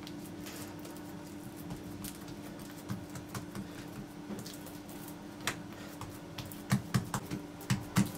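Oiled hands patting and pressing soft poğaça dough flat on a countertop: a run of soft, light taps that comes thicker over the last couple of seconds, over a faint steady hum.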